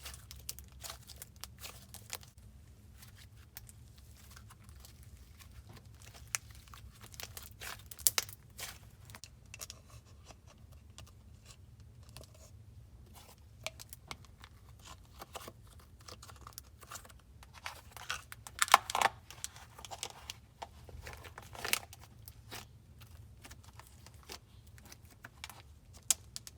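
Slime being kneaded and stretched by hand, giving off irregular sticky clicks, crackles and tearing sounds, busiest a little past halfway through.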